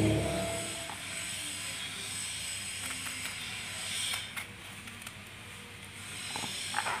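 A small kitchen knife scraping and cutting the soft seed core out of bottle gourd quarters, with a few faint taps, over a steady hiss. A pitched sound dies away in the first half-second.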